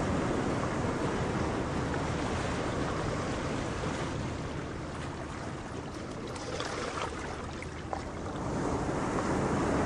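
Steady rushing of ocean surf, a sea-sound effect that eases off through the middle and swells again near the end.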